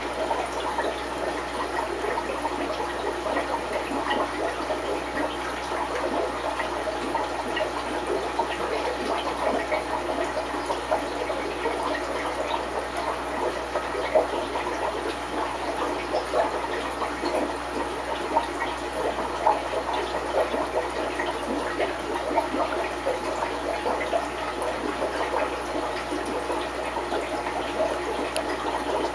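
Aquarium water running and bubbling steadily, with a dense crackle of small pops throughout.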